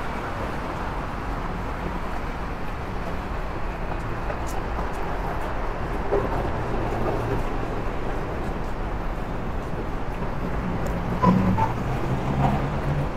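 Steady hum of city road traffic heard from an elevated walkway, with a few brief faint voices near the end.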